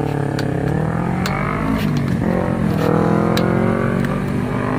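Road traffic at an intersection: a vehicle engine running and accelerating, its pitch drifting up and down, with several sharp clicks scattered over it.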